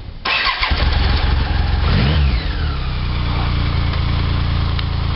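BMW K75's three-cylinder engine cranked on the starter and catching within a second, revved briefly about two seconds in, then settling into a steady idle.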